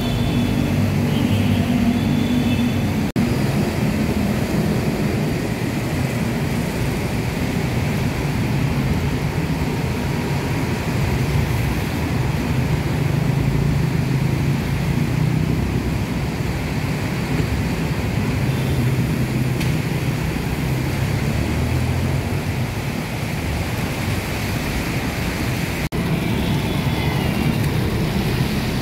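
Busy road traffic on wet asphalt: motorbike, car and bus engines running steadily, with tyres hissing on the wet road. The sound cuts out for an instant twice, about 3 seconds in and near the end.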